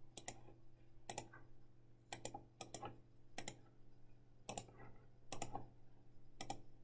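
Faint, sharp clicks of calculator keys being pressed one at a time, about a dozen spaced irregularly and often in close pairs, as a short sum is keyed in.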